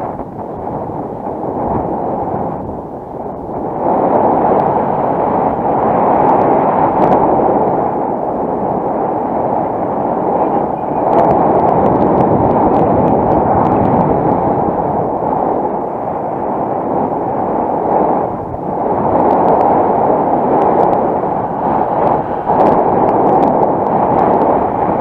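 Wind rushing over the camera microphone in the airflow of a paraglider launch and flight. The loud buffeting swells and falls and grows louder about four seconds in.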